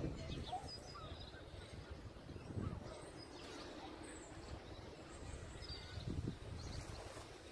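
Scattered bird calls, short chirps and whistles, over a steady low rumble of wind on the microphone.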